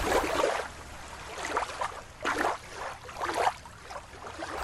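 Water gurgling and sloshing in several separate gurgles.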